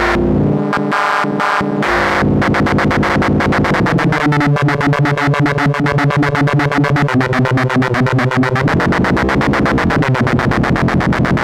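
Stylophone S2 analog synthesizer playing a buzzy, harmonic-rich tone that becomes a fast, even pulsing about two seconds in, with the pitch stepping between notes and gliding near the end.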